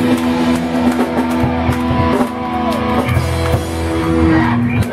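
Live rock band playing loud: distorted electric guitars over bass and drums, with long held guitar notes ringing.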